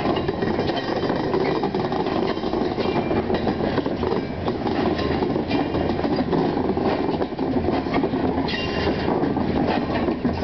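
Ballast hopper cars of a slow freight train rolling past, their wheels clicking and clanking over the rail joints with a steady rumble. A brief high metallic squeal from the wheels comes about eight and a half seconds in.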